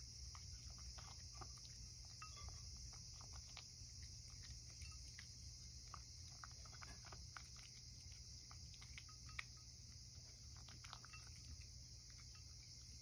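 A cat eating dry kibble mixed with canned food from a bowl: faint, irregular chewing clicks and crunches with some lapping, one sharper click about nine seconds in, over a steady background hiss.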